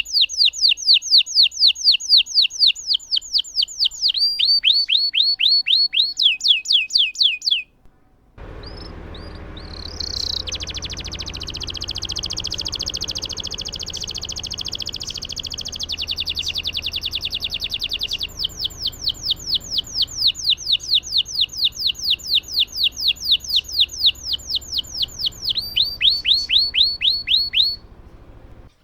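Domestic canary singing a long rolling song. Runs of quick repeated down-slurred notes, about five a second, stop for a short pause about eight seconds in. A fast buzzing trill follows for about seven seconds, then more runs of repeated notes.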